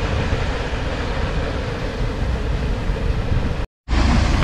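Wind buffeting the camera microphone: a steady, rumbling rush. It cuts out to silence for a moment near the end, then carries on.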